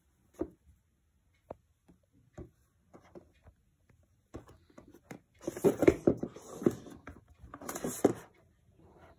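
Handling noise from an iPad Air 4: scattered light taps and knocks as the tablet is lifted and turned over, then two longer rustling, scraping bursts, one a little past halfway and a shorter one near the end.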